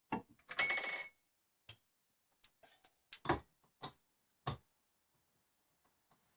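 Metal clinks and knocks of hard metal pieces being handled: a ringing metallic rattle about half a second in, then a handful of sharp, separate clinks at uneven intervals, a couple leaving a brief high ring.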